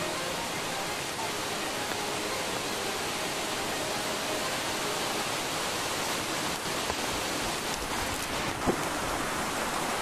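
Steady, even hiss of rushing water, growing slightly louder in the second half, with a few faint ticks near the end.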